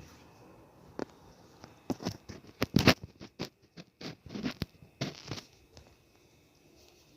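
Pole-mounted distribution transformer making irregular crackling and popping noises: a cluster of sharp cracks and short bursts from about a second in, loudest near the middle, dying away after about five seconds.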